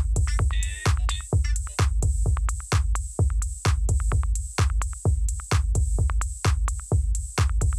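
Electronic background music with a steady drum-machine beat, about two strikes a second, and a short run of synth notes about a second in.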